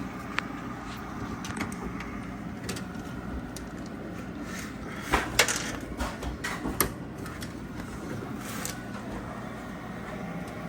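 Small plastic and metal clicks and taps as computer parts are handled inside a PC case, bunched together about five to seven seconds in, over a steady low background hum.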